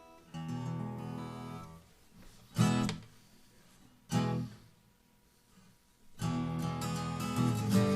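Guitar strummed in starts and stops: a chord rings out, two short sharp strums follow, then after a brief pause steady strumming begins about six seconds in.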